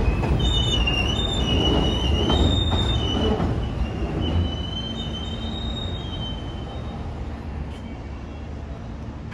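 Alstom R160A-1 New York City Subway train running through the station, its wheels squealing on the rails in several high, wavering tones over a low rumble. The squeal stops about two-thirds of the way in and the rumble fades as the train moves away.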